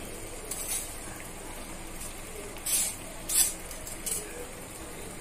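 Cooked elbow macaroni being tipped from a metal mesh strainer into a steel pan, pushed along with a perforated metal ladle: about four short scraping, rustling bursts of metal against metal and pasta sliding into the pan.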